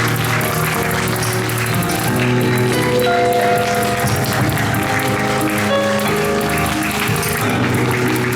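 Music from the show's band playing, with the audience applauding over it.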